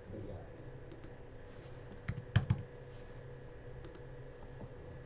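Computer keyboard keys typed a handful of times in scattered clicks, the loudest three close together about halfway through, over a faint steady hum.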